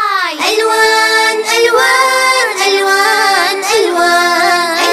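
High child and female voices singing a children's song, coming in after a brief silence with a falling swoop and then holding sung notes.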